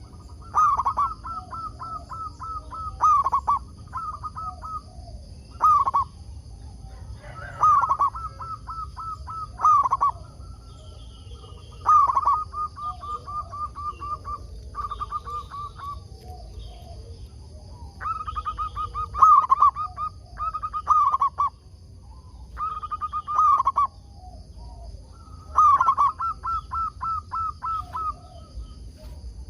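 Zebra dove (perkutut) cooing: repeated phrases, each a loud note followed by a quick run of short, even notes, about every two to three seconds.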